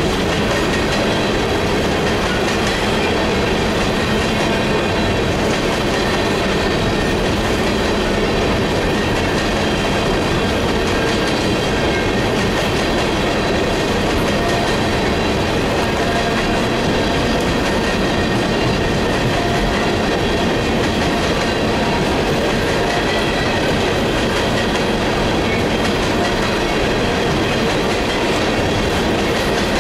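Loaded-or-empty coal gondola cars of a BNSF coal train rolling past at close range: a steady rumble of steel wheels on rail with rapid clicking, and a faint high ringing underneath.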